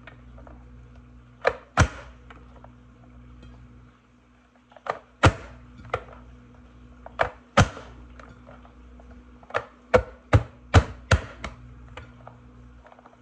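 Manual push-down vegetable chopper dicing onion: the plastic lid is pressed down through the grid blade in sharp snaps, in pairs a few seconds apart, then six in quick succession near the end. A steady low hum runs underneath.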